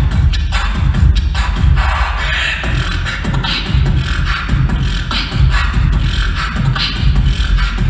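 A beatboxer performing live into a microphone through a PA: a heavy, continuous bass line under quick clicks and recurring hissy snare-like sounds.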